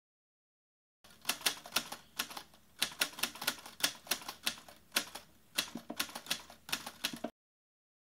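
Manual typewriter typing a short line: the typebars strike the paper one key at a time in an uneven rhythm, with short pauses between groups of letters. The clacking starts about a second in and cuts off abruptly near the end.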